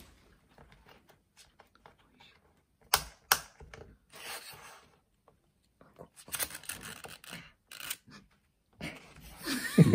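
Small wooden card-case parts handled and test-fitted on a wooden workbench: light clicks and taps, two sharp clicks about three seconds in, then a run of short rubbing strokes.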